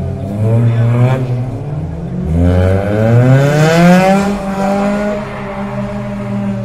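Car engine revving hard as the car is thrown around the lot. The pitch climbs briefly about a second in, then rises in a long climb from about two seconds in and holds there, loudest around three to four seconds in.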